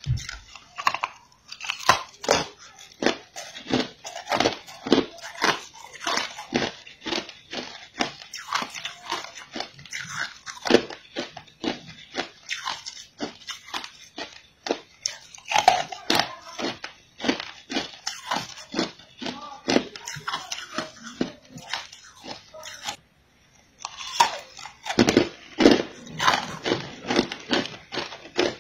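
A person biting and chewing a block of green-coloured ice, with a run of crackling crunches as the ice breaks between the teeth. The crunching drops out for about a second about three-quarters of the way through, then resumes.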